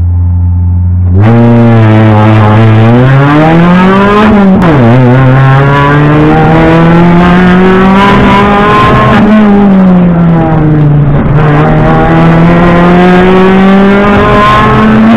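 Rally car engine heard from inside the cabin: held at steady revs, then accelerating hard about a second in, its revs climbing and dropping sharply at the upshifts and rising and falling with the stage.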